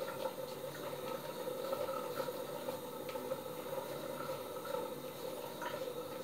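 Three-blade cartridge razor scraping through long stubble on a scalp in short, faint strokes, over a steady hum and hiss.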